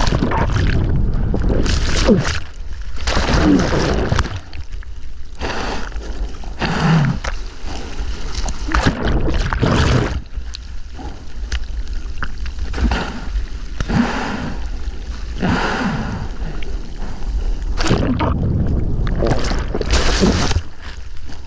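Water splashing and rushing as a surfer paddles a surfboard out through breaking waves, with repeated, irregular splashes every second or two.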